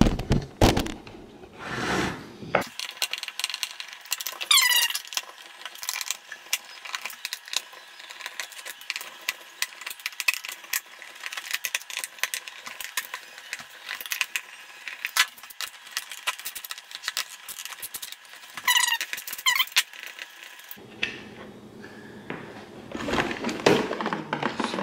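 Screwdriver backing screws out of the plastic rear housing of a BMW E30 instrument cluster: many small sharp clicks and ticks, with short rising squeaks twice, a few seconds in and again near the end. Louder knocks of the cluster being handled come near the end.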